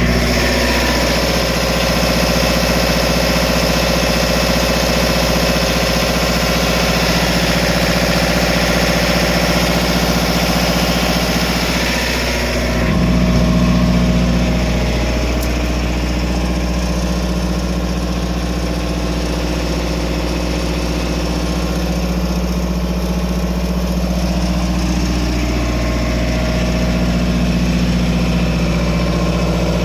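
Cummins AMMPS MEP-1050 15 kW military diesel generator running with a steady hum. About thirteen seconds in the sound briefly swells, then the higher hiss falls away and the lower hum carries on.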